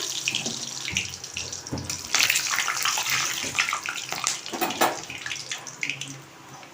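Whole garam masala spices and bay leaves sizzling in hot oil in a kadai, a steady hiss with scattered sharp crackles and pops that slowly dies down.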